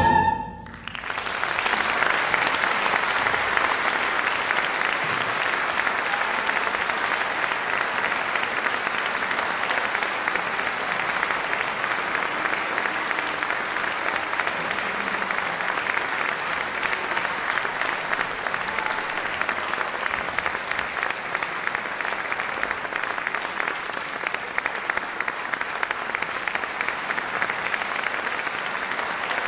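The orchestra's final chord cuts off right at the start, and from about a second in a concert audience applauds steadily.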